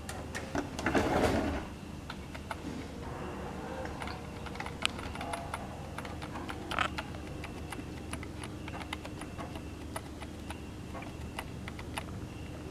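A sliding wooden keyboard tray scraping out about a second in, then a computer keyboard's function key clicked over and over at uneven intervals while the PC boots, to get into the BIOS setup utility.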